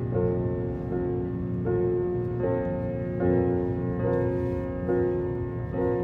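Calm, slow background music led by piano or keyboard: held chords that change about once a second, over a low steady rumble.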